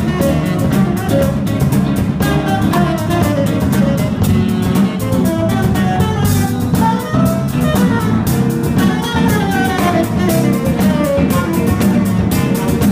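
Live jazz-funk band playing: an electric keyboard runs melodic lines up and down over a low bass line, with the drum kit keeping a busy beat on cymbals and drums.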